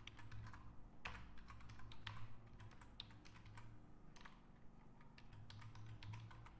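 Faint typing on a computer keyboard: quick, irregular keystrokes clicking several times a second, over a low steady hum.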